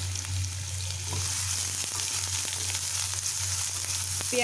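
Freshly added chopped onions, with chopped ginger and garlic, sizzling in hot oil in a nonstick kadai, the hiss growing louder about a second in. A wooden spatula stirs them, with faint scrapes and clicks against the pan.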